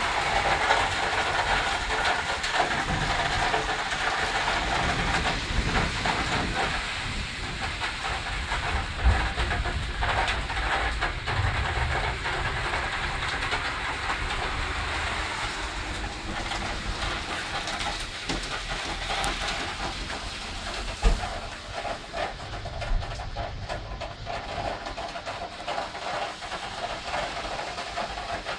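Thunderstorm downpour and wind: a steady rushing hiss of heavy rain with irregular low buffeting, loudest at the start and slowly easing off. Two sharp knocks stand out, about nine and twenty-one seconds in.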